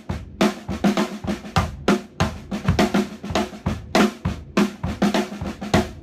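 Drum kit: snare drum playing a 7/4 pattern of loud accents among quiet ghost notes, with bass drum strokes underneath, played up to tempo in a continuous groove that stops right at the end.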